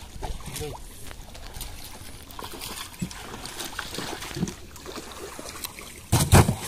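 Water trickling and sloshing around a canoe, with scattered small knocks and splashes and one heavy thump about six seconds in.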